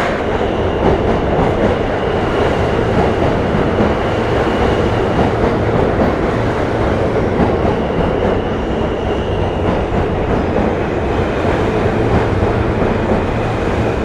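New York City subway train running through an underground station: a loud, steady rumble and clatter of wheels on rail, with a faint high-pitched whine that fades out and comes back.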